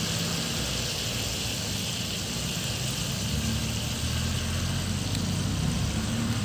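Duck pieces sizzling in a wok, a steady hiss, over a steady low hum that grows a little louder about halfway through.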